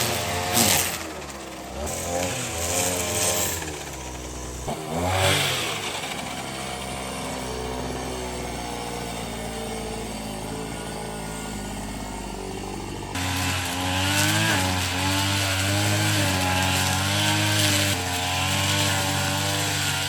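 A small engine running with its pitch wavering up and down. It runs lower and quieter for several seconds in the middle, then picks up louder and higher about two thirds of the way in.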